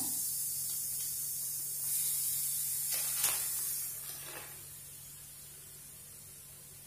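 Baking soda, lemon juice and water fizzing and bubbling on a heated dosa tawa, a steady high hiss that fades away after about four seconds.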